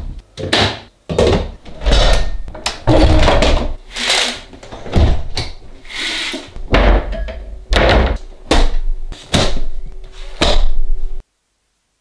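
Household doors being shut one after another, among them fridge doors and a window: a quick run of thuds and bangs, more than one a second. The sound cuts off suddenly about a second before the end.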